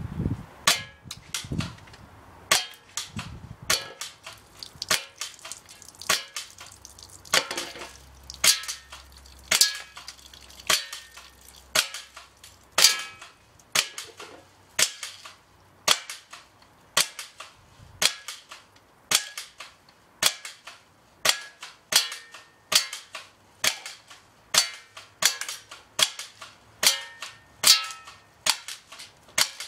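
Cyma P788 BB shotgun being fired over and over, a sharp crack about once a second, with the BBs smacking into a plastic bottle target.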